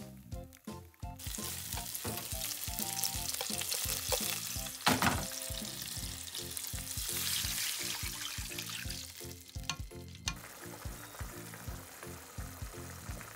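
Pancetta sizzling in hot olive oil in a frying pan, stirred with chopsticks. Partway through, water is poured into the hot oil and the sizzle grows to a loud hiss, then drops to a softer bubbling hiss about ten seconds in.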